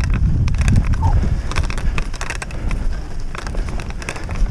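Wheels of a dog-drawn rig rolling over a frosted, rutted dirt track: a steady rumble with frequent crunches and rattles, and wind on the microphone.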